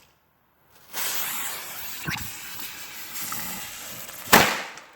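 Sidewinder firecracker in water: it hisses steadily for about three seconds, then goes off with one sharp, loud bang near the end.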